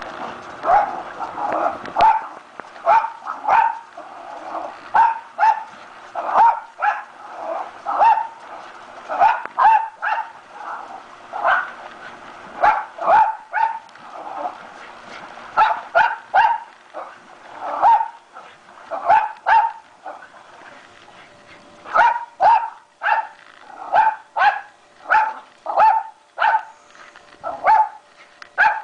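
Pomeranian barking again and again in short, sharp yaps, often in quick runs of two or three with brief pauses, as it goes after bubbles in a swimming pool.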